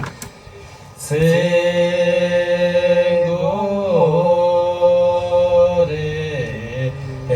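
Vocal music: a single voice chanting long, drawn-out notes that bend slowly up and down in pitch, starting about a second in.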